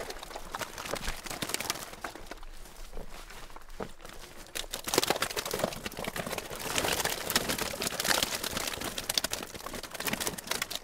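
Rustling and crackling of a wet nylon weigh sling and keepnet being handled, many small clicks and scrapes. It grows busier and louder about halfway through.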